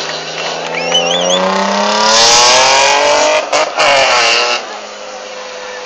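Hillclimb race car engine accelerating, its note rising steadily for about three seconds with two brief cuts near the middle, then dropping to a lower, quieter sound.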